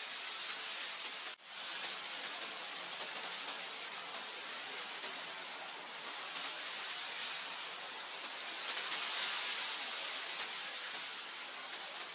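Wind blowing steadily as an even high hiss, swelling slightly louder about nine seconds in. There is a brief dropout about one and a half seconds in.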